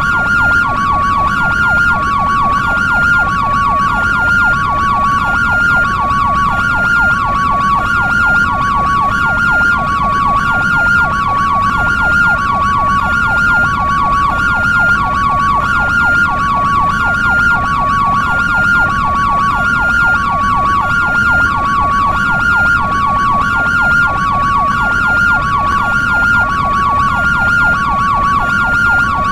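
European-style ambulance siren: a hi-lo two-tone alternating steadily between a higher and a lower pitch, with a rapid yelp warbling beneath it. Loud and unchanging throughout.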